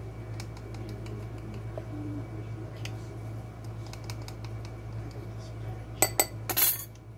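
Metal measuring spoons and a spice jar tapping and scraping as dried thyme is measured into a small glass bowl, with small scattered clicks. About six seconds in comes a sharp metallic clink and a brief clatter of metal spoons against glass. A steady low hum runs underneath.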